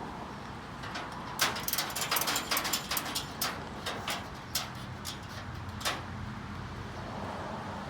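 Ratchet buckle on a car-hauler tire strap being worked to tighten the canvas strap over a wheel: a run of sharp, irregular metallic clicks starting about a second and a half in and stopping near six seconds.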